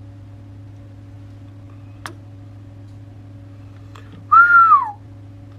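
A man whistles once into a CB radio microphone, a short whistle that holds its pitch and then falls away, to make the transmitter swing up in power on the meter. A steady low electrical hum runs underneath, with a sharp click about two seconds in.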